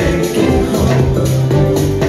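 Deep house music from a DJ mix: a steady dance beat with held bass notes and repeating percussion.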